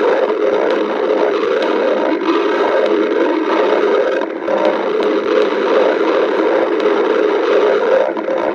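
A person's stomach growling from hunger: an unbroken, irregular gurgling rumble.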